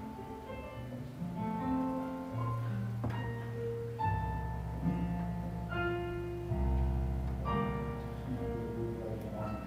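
Electric keyboard playing slow instrumental church music: long held chords over sustained bass notes that shift every second or two.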